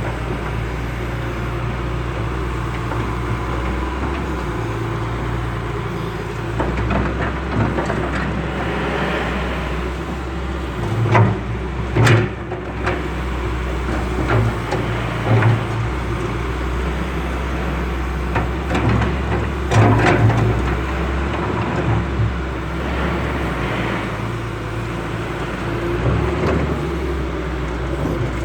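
A steady low engine hum with a wash of noise, broken by a few sharp knocks and clatters.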